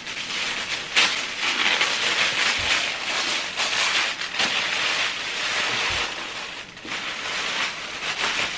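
Tissue paper rustling and crinkling as it is pulled and handled out of a shipping box, with a sharp crackle about a second in.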